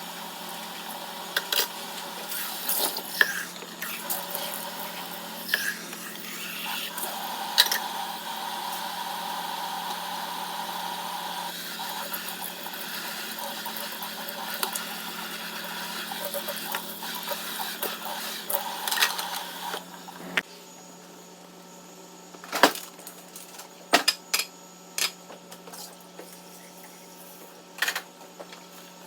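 Kitchen things being handled during cleanup: sharp knocks and clatters of hard items set down and moved. A steady hiss runs under them and stops about twenty seconds in, leaving a low hum.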